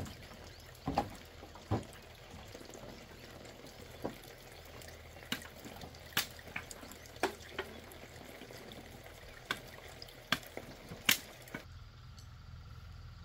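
Bamboo poles and sticks knocking and clattering as they are picked up and moved: a dozen or so sharp, separate knocks at irregular intervals.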